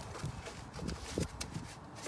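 Light, irregular knocks and rubbing from parts being handled and worked loose in a car's engine bay during serpentine belt removal.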